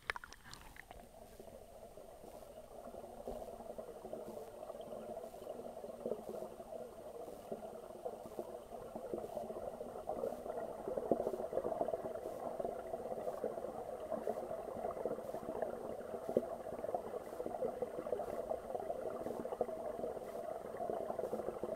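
Steady muffled bubbling and crackling of pond water heard underwater through a waterproof camera housing, with a brief knock at the very start. It grows louder over the first ten seconds or so.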